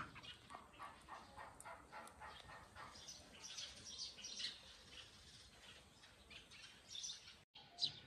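Faint chirps of young bulbuls, many short calls scattered through, with a few higher ones near the end.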